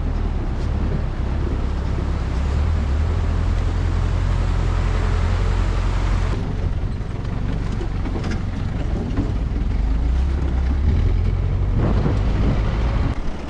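A 4x4 jeep driving over a rough, rocky riverbed: a steady low engine rumble mixed with road noise.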